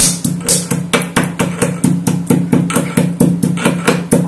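Roasted cardamom being pounded to powder in a mortar: rapid, even strikes about five a second, with a steady low ringing hum under them.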